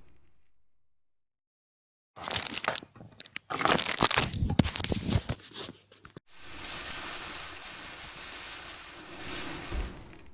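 Crinkling and crackling handling noise lasting about four seconds, starting about two seconds in, followed by a steady hiss-like background that fades out near the end.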